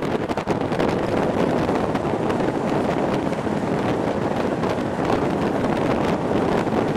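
Wind rushing over the microphone at the open window of a moving passenger coach, with the steady running noise of the train on the rails beneath it.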